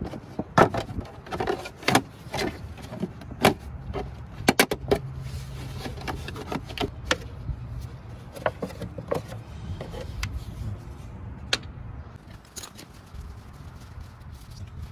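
Shears snipping and cracking through a plastic jug: a run of sharp irregular snaps with plastic crinkling, densest in the first seven seconds, over a steady low hum.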